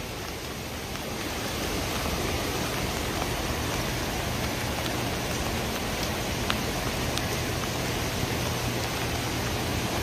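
Steady rush of floodwater in a storm-swollen creek running fast and high, an even, unbroken noise.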